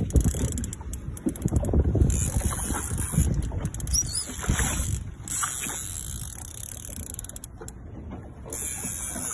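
Irregular mechanical clicking of a big-game fishing reel under load from a hooked shark, over steady wind and water noise around a small boat.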